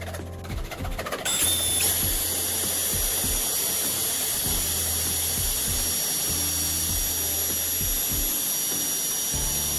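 A small power tool running with a steady high whine, over background music with a repeating bass line.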